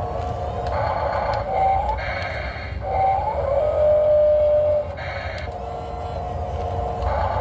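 Electric motors of a radio-controlled model excavator whining as it digs and lifts sand. The pitch steps and slides as different movements start and stop, with a short rising note about a second and a half in and a louder, steadier lower note from about three and a half to five seconds in.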